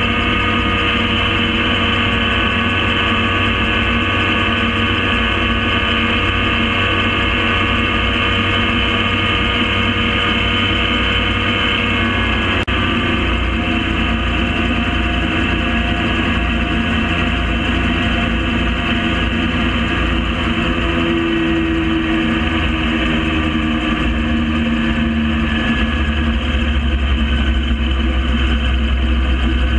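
Gyrocopter engine and propeller running steadily at cruise, with small shifts in pitch about midway and again later.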